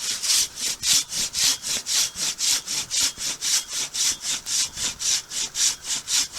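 Silky Katana Boy 500 curved folding saw cutting through a large down log, with fast, even back-and-forth strokes at about four a second.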